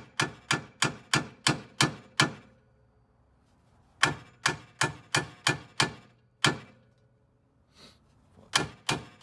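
A hammer striking the end of a steel wheel stud on a 1992 Honda Civic's rear hub, driving out a damaged stud. Quick blows about three a second come in two runs of about seven, with a pause after each, and a few more strikes near the end.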